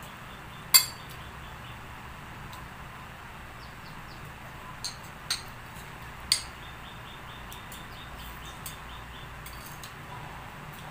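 Metal spoon clinking against a plate while scooping rice: one sharp clink about a second in, then three more spaced over about a second and a half around the middle, over a steady low background noise.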